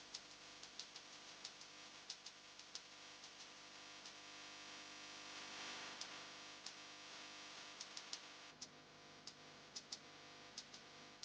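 Faint wash of sea waves that swells and fades about halfway through, with scattered sharp ticks over it.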